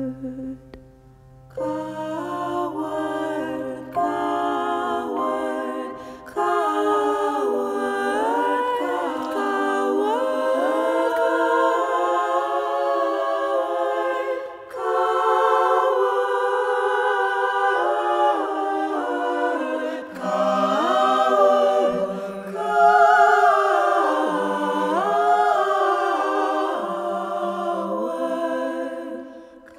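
Wordless a cappella singing: several layered voices hum and vocalise in harmony, with notes sliding up and down. There is a brief hush about a second in.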